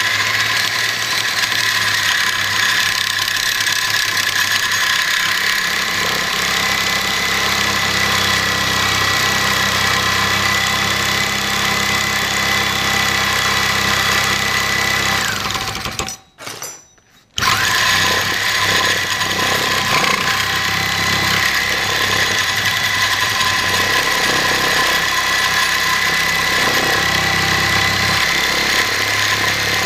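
Reciprocating saw with a Diablo carbide-strip stainless-steel blade cutting mild steel, running steadily with a high whine. It cuts off briefly about sixteen seconds in, then starts cutting again. The carbide blade cuts the steel slowly.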